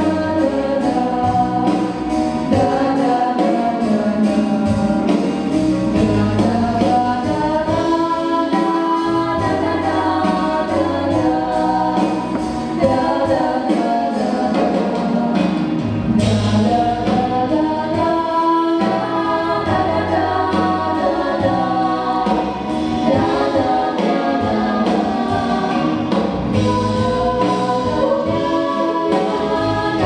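Four girls' voices singing a song together into microphones over a recorded accompaniment with a steady, pulsing bass.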